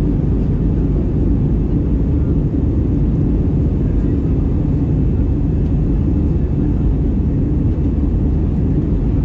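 Steady low roar of an Airbus A320's jet engines and rushing air, heard inside the passenger cabin in flight.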